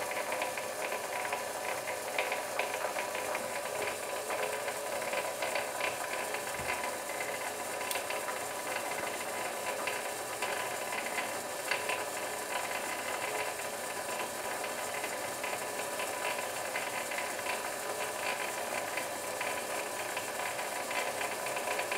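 Myford lathe running slowly in back gear, its spindle turning at about 30 rpm: a steady mechanical whir of the motor, belt drive and meshing gears, with light clicking.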